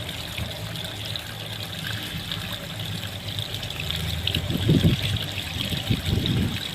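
Water flowing and splashing out of a newly drilled well, over a steady low hum, with two dull swells near the end.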